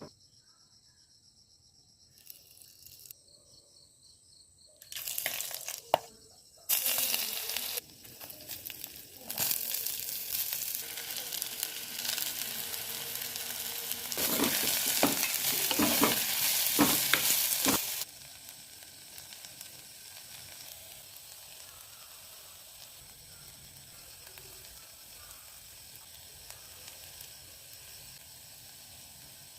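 Chicken frying in hot oil in a pan, sizzling. The sizzle starts loud about seven seconds in, grows louder with a few sharp knocks, then drops suddenly at about eighteen seconds to a soft, steady sizzle.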